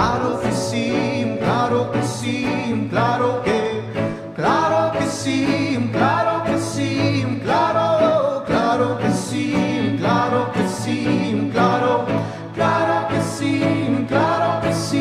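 Live song performed by a band with a chamber string section, with a male lead voice singing. The sung phrases start about every second and a half, each opening with an upward slide, over sustained held chords.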